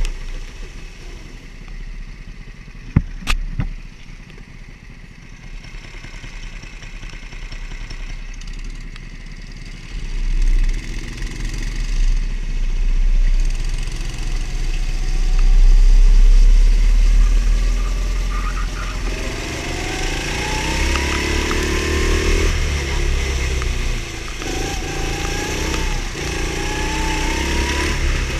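Go-kart engine heard from on board under heavy wind rumble on the microphone, with a sharp knock about three seconds in. In the last third the engine pitch rises several times as the kart accelerates.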